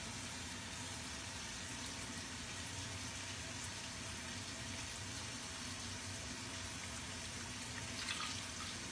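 Water poured steadily from a jug into a slow cooker's crock of dried pinto beans and smoked ham, filling it up. It runs as an even splashing rush, briefly a little louder about eight seconds in.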